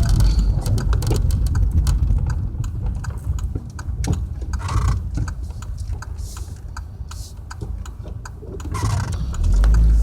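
Car driving in rain, heard from inside the cabin: a steady low rumble of road and engine noise with many scattered light ticks. The rumble eases a little partway through and swells again near the end.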